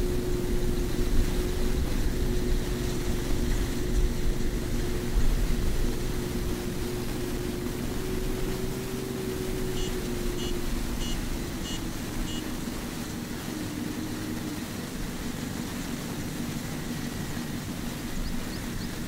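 Kubota farm tractor's diesel engine running steadily as it pulls a loaded trailer, with a run of short high chirps about halfway through.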